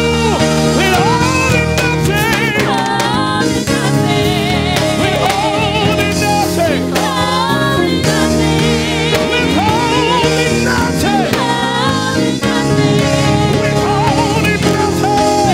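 Live gospel worship music: a band playing sustained chords under a solo singer's wavering held notes and melodic runs.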